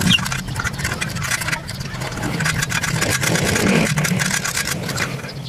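Small portable generator engine running steadily, with frequent clicks and rattles over it.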